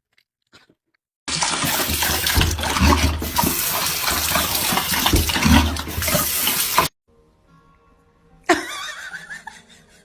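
Loud rushing water that starts suddenly about a second in and cuts off abruptly about seven seconds in, followed by a brief sudden sound near the end.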